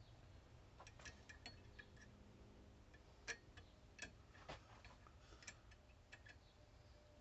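Near silence: faint, irregular light clicks and taps from handling at the wood lathe, over a low hum.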